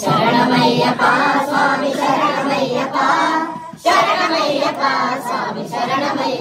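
Group of voices singing an Ayyappa devotional bhajan together, with a brief pause just before the four-second mark.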